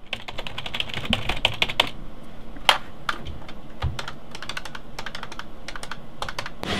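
Typing on a computer keyboard: fast runs of key clicks, thinning out into separate single clicks as keys on a desk phone are pressed. A dull knock comes near the middle as the phone handset is picked up.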